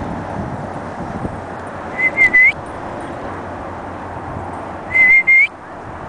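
Two short, high whistles about three seconds apart, each broken into three quick notes with the last one rising slightly, over a steady background hiss.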